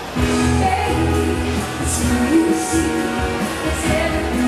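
A female singer singing live into a microphone over instrumental backing with a steady bass line, amplified through the stage sound system; a held note begins just after the start.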